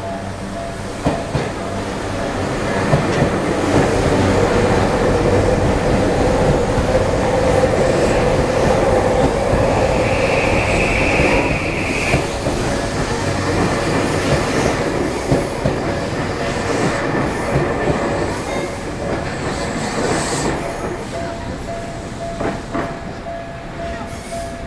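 A Tokyu Meguro Line electric train passing over a level crossing. Its wheels clack over the rail joints as it builds up, there is a brief high squeal about ten seconds in, and it fades near the end. The crossing's warning bell rings under it.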